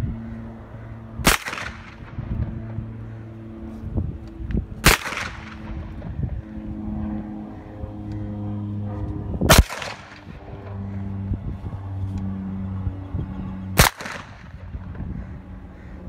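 An HK MP5 submachine gun firing ZOL 9mm rounds in slow, aimed single shots: four shots three to five seconds apart, each with a short echo trailing off. A low steady hum runs underneath.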